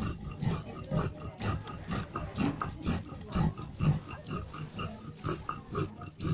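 Stone mano scraping back and forth over a metate, grinding by hand in steady rough strokes about two a second.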